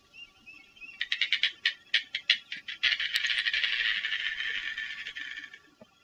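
Australasian darter calling: a run of dry clicks, then about three seconds of continuous rattling chatter that dies away near the end.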